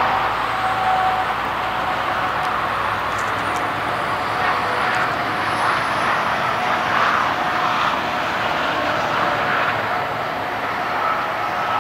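Antonov An-26's twin turboprop engines running as it comes in to land: a steady rushing noise with a faint steady whine, level throughout.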